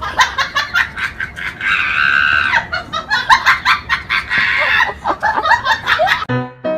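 Bird calling in a rapid series of short, sharp clucks and squawks, with one longer held squawk about two seconds in.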